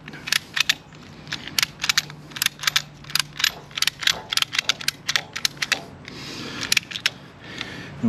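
Ratchet strap's ratchet being cranked to pull the strap tight: a quick run of sharp clicks in uneven clusters, with a short rasp near the end.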